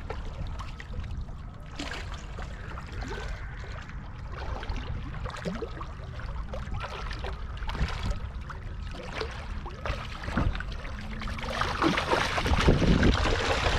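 Shallow river water running over rocks, with irregular splashes that grow louder and denser near the end, typical of spawning lake sturgeon rolling and thrashing in the shallows.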